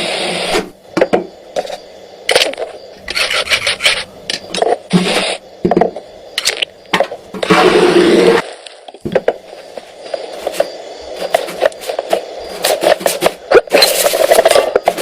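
Drum kit and percussion played as sound effects: an irregular run of sharp hits, clicks and scraping strokes, with a longer loud scrape about eight seconds in and a dense flurry of strokes near the end.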